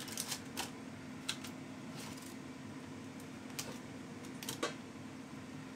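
A metal fork clicking and scraping against a nonstick air fryer basket and its paper liner as burger patties are turned over by hand: a handful of light, scattered clicks over a faint steady hum.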